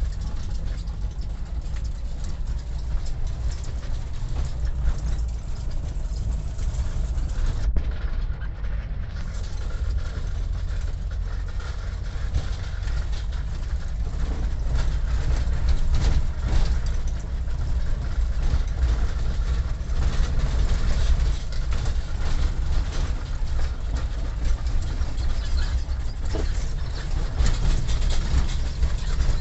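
Vehicle running along the road, a steady low rumble with a noisy hiss of road and wind over it.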